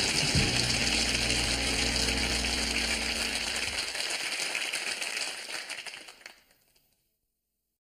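Tail of a television sitcom's closing theme: low held notes under a dense hiss, which die away and fade out to silence about six seconds in.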